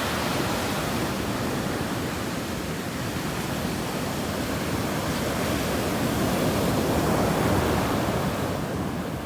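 Sea waves breaking and washing on a sandy beach in a steady roar of surf, swelling about two-thirds of the way through and easing off near the end.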